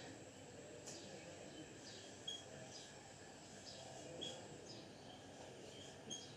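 Marker pen writing on a whiteboard: faint scratchy strokes with a few short, high squeaks, about three standing out, over low room hiss.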